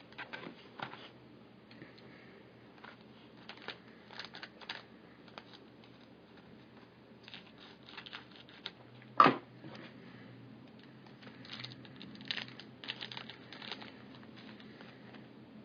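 Trading-card box and pack wrapper being torn open and the cards handled, with scattered crinkling and clicks. One sharp knock about nine seconds in is the loudest sound.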